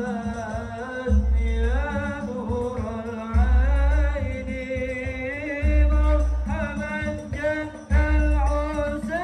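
Music with a singer: a voice carrying an ornamented, bending melody over a deep bass note that comes in about every two seconds.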